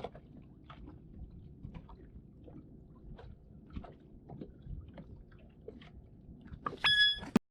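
Faint scattered clicks and taps over a low background, then near the end a short, loud ringing tone that cuts off abruptly.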